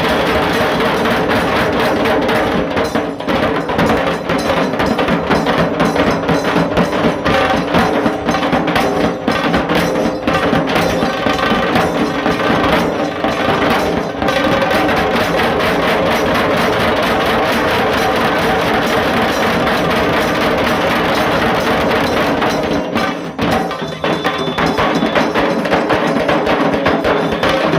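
Dhol tasa ensemble drumming: dhol drums and sharp tasa strokes in a fast, dense, continuous rhythm. It eases briefly about 23 seconds in, then carries on at full level.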